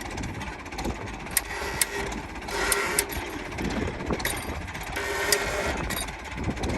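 An engine running steadily at idle, with a few sharp clicks and knocks over it.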